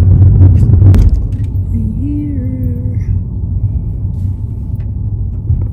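Low rumble of a car's cabin while driving, from road and engine noise. It is loudest in the first second, then drops after a click about a second in. A short pitched sound comes through about two seconds in.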